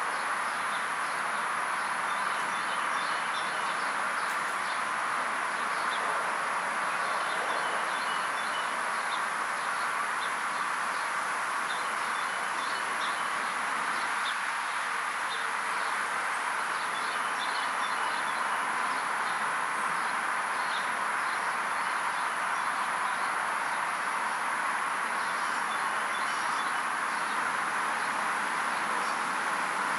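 Steady outdoor ambience: an even rushing noise with many faint, short bird chirps scattered through it.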